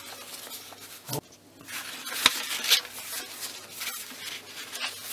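Paper rustling as junk journal pages are leafed through and handled, with a few light taps, the sharpest a little over two seconds in.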